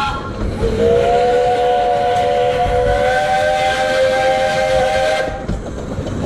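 15-inch gauge steam locomotive's chime whistle sounding one long blast of several notes together, sliding up slightly as it opens and held for about four and a half seconds. It is sounded for departure.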